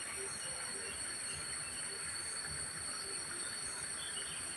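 Insects buzzing in a steady, high-pitched drone, with a few faint chirps now and then.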